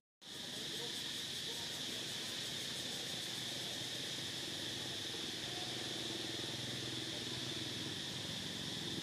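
Steady, high-pitched chorus of insects droning without a break, cutting in after a split-second gap at the very start.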